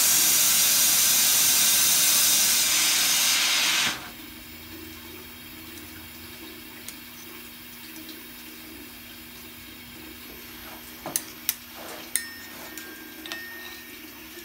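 A gas flame hissing loudly as it heats an iron hook, cutting off suddenly about four seconds in. A steady low hum is left, and near the end come a few sharp metallic clinks, one with a brief ring.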